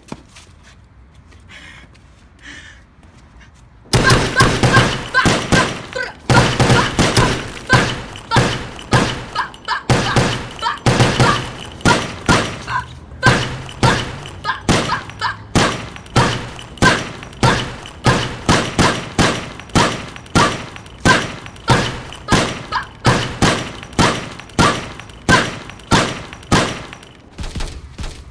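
Gunfire-like bangs: a dense volley of sharp shots breaks out about four seconds in, then goes on as a regular run of bangs, about three every two seconds.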